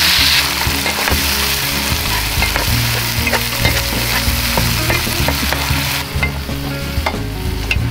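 Green chili sambal paste sizzling in hot oil in a frying pan while a metal spatula stirs it, clicking and scraping against the pan many times. The sizzle is brightest right at the start, then settles lower.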